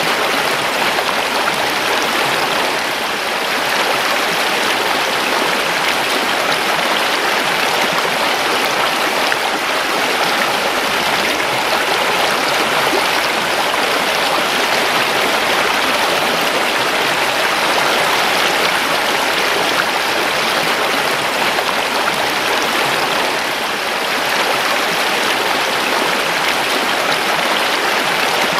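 Creek water rushing and burbling over stones, a steady, unbroken rush.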